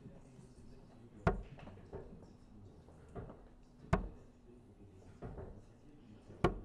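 Three steel-tip darts hitting a Winmau Blade 6 bristle dartboard, one sharp impact every two and a half seconds or so.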